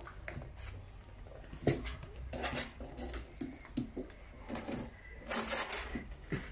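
Spaniel puppies moving about on a hard floor: a run of soft clicks, taps and scuffles, with a brief louder rustle about five seconds in.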